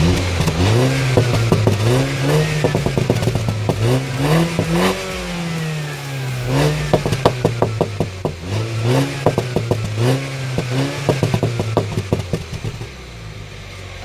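MINI Cooper S's 2.0 L turbocharged four-cylinder engine revved again and again, its pitch climbing and falling back, with bursts of exhaust pops and crackles as the revs drop. Near the end it settles back and quietens.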